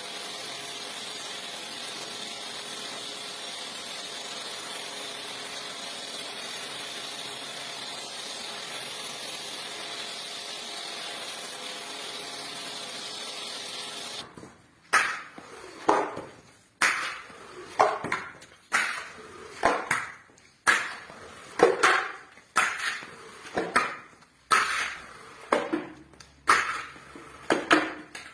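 Rug cleaning: a steady machine hiss with faint steady tones for about the first half. It stops abruptly and gives way to rhythmic strokes on the wet rug, about one a second, each sharp at the start and trailing off.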